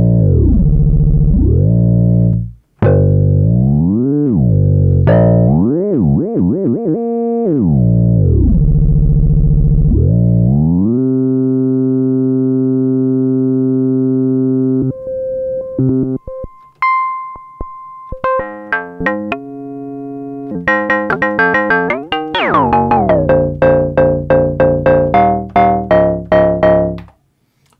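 Modal Electronics Cobalt5S synthesizer played live: for the first ten seconds or so its notes swoop steeply down and back up in pitch, then it holds a chord for a few seconds, plays a few scattered short notes, and near the end plays a fast run of repeated notes that stops suddenly.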